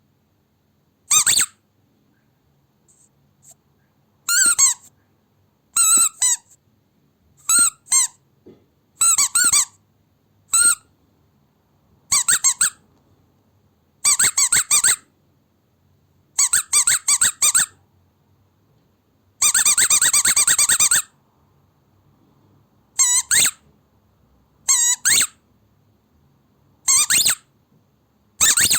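Rubber squeaky dog toy squeezed again and again: short high-pitched squeaks, singly and in quick runs of several, with one long drawn-out squeak about two-thirds of the way in.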